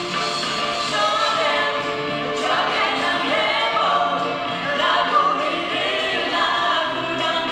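Live band playing an upbeat song while a woman and a man sing together into microphones, with more voices joining in.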